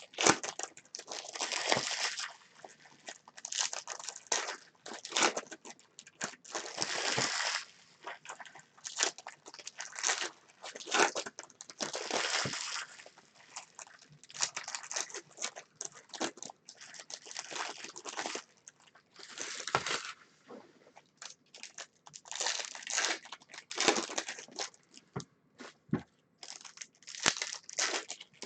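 Plastic and foil wrappers of baseball trading-card packs and boxes crinkling and tearing as they are opened, in irregular short rustling bursts about every second or two.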